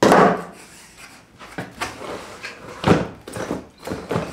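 Cardboard packaging being handled and pulled out of a box: a loud scrape at the start, then several separate knocks and rubbing scrapes.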